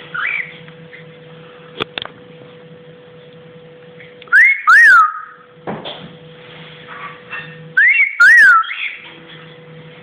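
Cockatiel whistling: the same loud two-note phrase that glides up and down twice, about four and a half and eight seconds in, after a short chirp at the start. A faint steady hum lies underneath.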